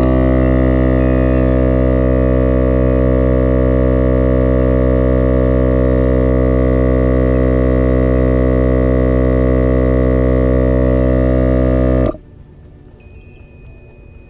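Viair 88P portable 12-volt compressor running with a steady drone while inflating a truck tire, powered from a battery pack sagged to 11.9 volts; it is switched off and stops abruptly about twelve seconds in.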